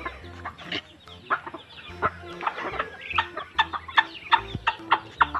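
Chickens clucking among a feeding flock of Muscovy ducks and chickens, with many short sharp pecks and clucks following one another a few times a second.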